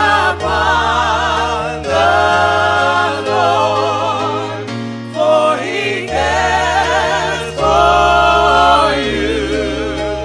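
Gospel music: a choir singing long held notes with a wavering vibrato over a steady bass line.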